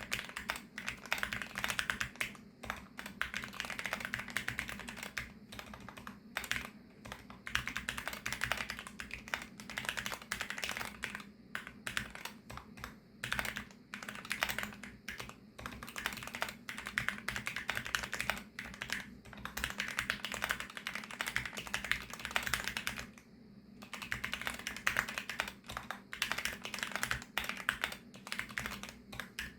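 Continuous fast typing on a VARO V68+ 65% mechanical keyboard with factory-lubricated VARO Panda linear switches: a dense stream of keystroke clacks, with brief pauses between bursts.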